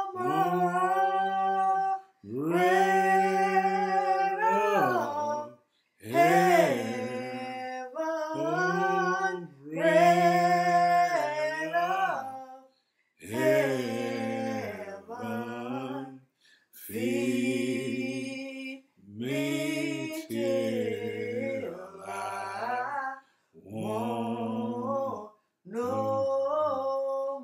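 A man singing solo and unaccompanied in slow, drawn-out phrases, each gliding and bending in pitch, with short breaths between them.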